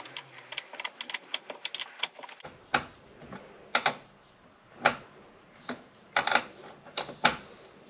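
Ratcheting wrench tightening the nut on a car battery's positive terminal clamp: a quick run of ratchet clicks for about two and a half seconds, then single clicks and small knocks about a second apart as the clamp is snugged and checked.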